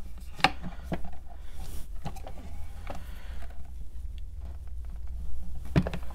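Scattered light clicks and knocks from a metal pen assembly press and pen parts being handled as the pen's mechanism is pressed into the barrel a little at a time, over a steady low hum.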